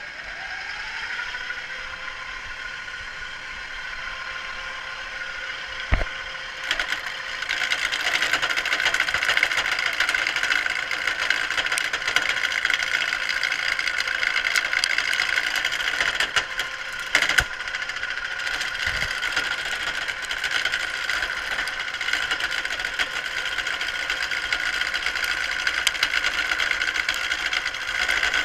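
Craftsman wood lathe whose motor whine finishes rising to speed at the start, then runs steadily. From about seven seconds in, a carbide turning tool cuts the spinning wood spindle with a continuous scraping hiss. There is a sharp knock about six seconds in and another near seventeen seconds.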